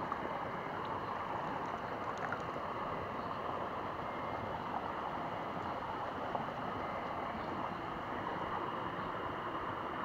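Shallow natural hot-spring stream running, a steady wash of flowing water.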